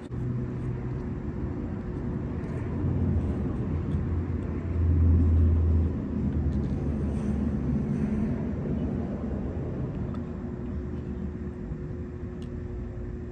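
A low engine rumble of a motor vehicle, swelling to its loudest about five seconds in, then dropping off and slowly fading.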